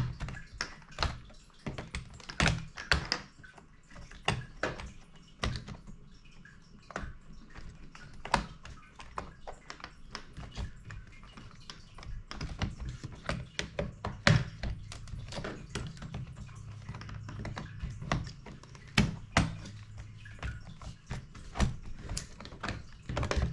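Irregular sharp plastic clicks, taps and knocks as the Dell G5 laptop's bottom cover is pried and unclipped from the chassis, with a faint low hum underneath.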